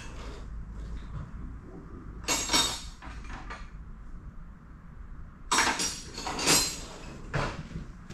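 Clinking and clattering of tools and hardware being handled, in two main bursts: one about two seconds in and a longer one from about five and a half to seven seconds. A steady low hum runs underneath.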